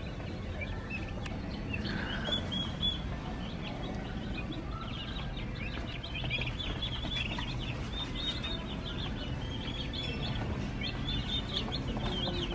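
A crowd of baby ducklings and chicks peeping, with many short, high peeps overlapping, over a low steady background hum.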